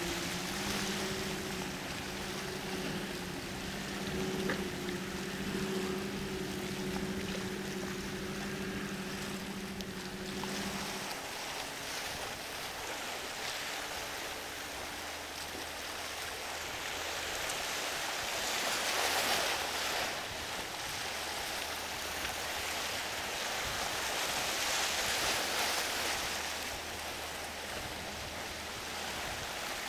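A boat engine drones steadily and cuts out about a third of the way in. After that comes a rushing hiss of surf and wind, which swells twice.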